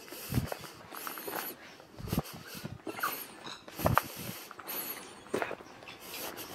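Heavy, snuffly breathing through a blocked nose close to the microphone, about one breath a second, with a few low thumps in between.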